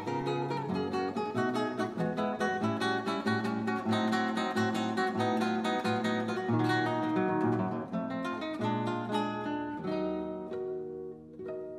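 Background music: acoustic guitar playing quick plucked notes, easing off near the end.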